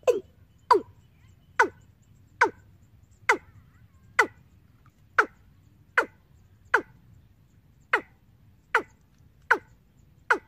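Recorded bird call of the type sold as 'ayam tembaga', played back through a small bird-trapping amplifier and speaker: a single short, sharp note that drops steeply in pitch, repeated about once every 0.8 seconds. A faint low hum lies underneath.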